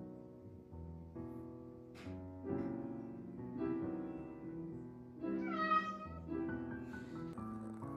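Soft piano background music; about five and a half seconds in, a short high kitten mew sounds over it.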